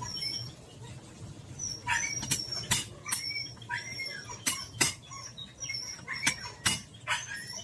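About a dozen sharp taps at an uneven pace, roughly two a second from about two seconds in, as the worn pin is worked out of a 2002 Isuzu Crosswind door hinge, with short high chirps between them.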